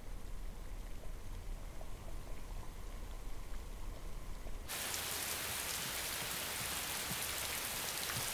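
Steady heavy rain, a dense even hiss that cuts in abruptly about halfway through. Before it there is only a low hum.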